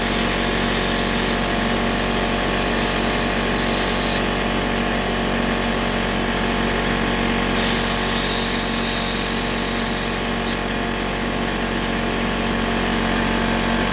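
Air compressor running steadily, with two long hisses of compressed air blowing: one at the start lasting about four seconds and another from about eight to ten seconds in, ending in a short click.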